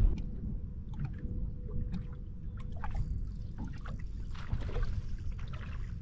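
Small waves lapping and splashing against a fibreglass bass boat's hull, with scattered small ticks, over a steady low wind rumble on the microphone.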